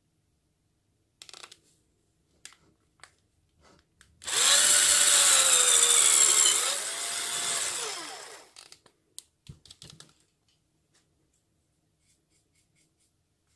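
Electric drill, held in a drill stand, boring a hole through a wooden board for about four seconds: the motor's pitch sags as the bit cuts, climbs again, then falls away as it stops. Light clicks and knocks from handling the stand before and after.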